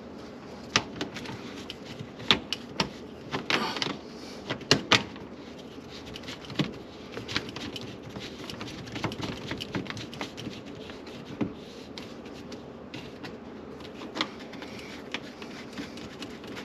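Irregular metal clicks and knocks as garbage disposal mounting parts are handled and fitted under a sink. The knocks come thickest in the first five seconds, then thin out to an occasional click.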